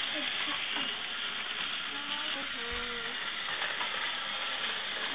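Battery-powered toy trains running on plastic track, giving a steady whirring hiss of small motors and wheels.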